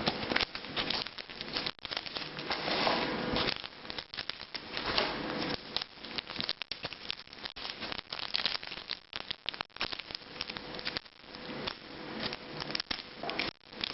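Foil wrapper of a Pokémon TCG booster pack crinkling and crackling irregularly as it is handled and worked open by hand.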